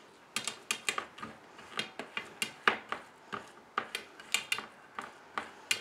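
Steel bowl pressing and tapping across hot nut-brittle mixture in a steel plate, leveling it: quick irregular metallic clinks, a few a second, each with a short ring.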